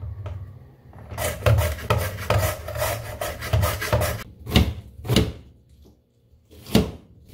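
Carrot being julienned on a handheld grater blade: rasping strokes about two to three a second, thinning out to two single strokes, then a pause. Near the end, one sharp kitchen-knife cut through onion onto a cutting board.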